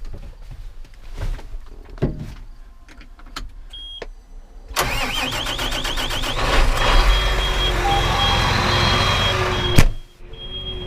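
Knocks and clicks inside a tractor cab, a short beep, then the tractor's diesel engine cranks and starts about five seconds in and runs, with the cab's warning beep sounding over and over. A slam near the end, the cab door shutting, after which the engine sounds muffled.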